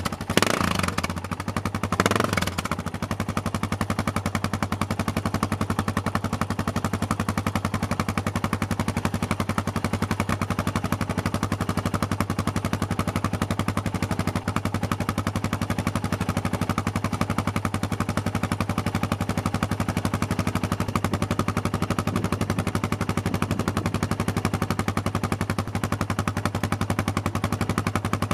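Yamaha XT600's single-cylinder four-stroke engine idling through a Dominator aftermarket exhaust, a steady rapid beat of exhaust pulses. Two quick throttle blips in the first three seconds briefly make it louder.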